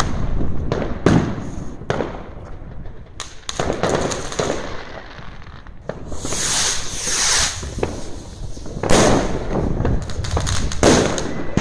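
Fireworks and firecrackers going off on all sides: a string of sharp bangs, some near and some farther off, with a longer hissing, crackling stretch midway and the loudest bangs in the later part.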